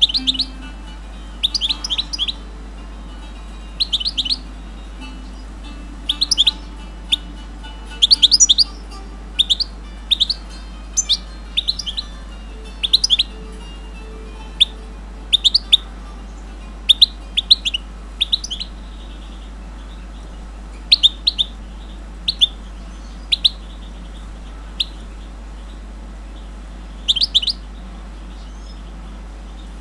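Caged songbird chirping: short, sharp, high notes in quick clusters of two to four, repeated every second or two with brief gaps.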